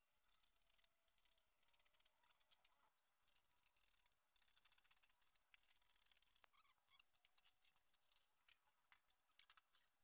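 Hand metal shears snipping through a thin metal sheet: faint, crisp crunching cuts in bursts with short pauses between them.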